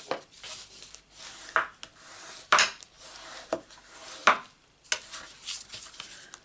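Sheets of card stock and paper being handled and slid across a craft mat: rustling and scraping with several sharp taps and rubs.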